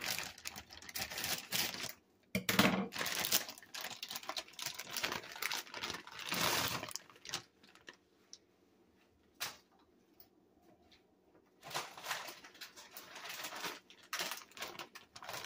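Frozen mixed vegetables (broccoli, cauliflower and carrot pieces) poured from a plastic bag into a pot: a rapid patter of hard frozen pieces clattering down, with the bag crinkling. The sound stops about halfway through, then more rustling and clattering comes near the end.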